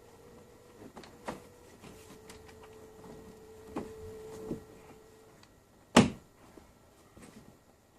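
Scattered clicks and light knocks of plastic parts being handled, with one sharp, loud click about six seconds in, over a faint steady hum.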